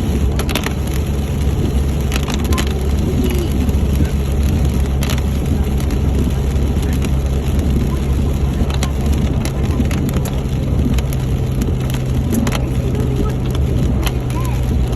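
Driving noise heard from inside a vehicle: a steady low drone of engine and tyres, with irregular sharp ticks and knocks scattered throughout.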